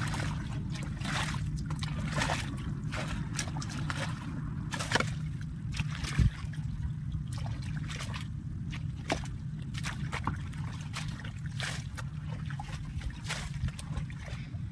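Shallow muddy water sloshing and splashing, with irregular scrapes and splashes as a wooden stick is dragged through the mud of a ditch, over a steady low rumble.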